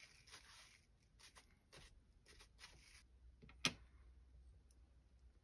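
Faint soft swishes of a white wipe being drawn over a solvent-dampened comic book page, several short strokes, then a single sharp click about three and a half seconds in.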